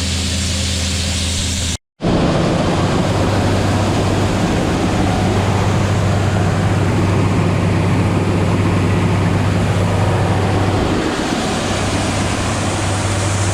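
Diesel engine of harvest machinery running steadily at constant speed, a low hum under heavy rushing noise. The sound drops out for a moment about two seconds in, then carries on unchanged.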